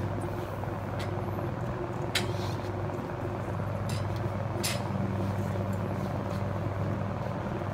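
A steady low mechanical hum with a light noisy wash, broken by a few sharp clicks about one, two and nearly five seconds in.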